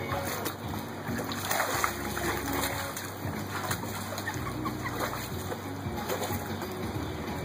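Pool water sloshing and splashing as a person wades and pushes an inflatable float, with a few short squeaks in the middle.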